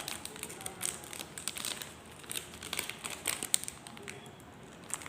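Plastic wrapping of a hopia pastry crinkling and crackling in irregular bursts as it is handled and opened.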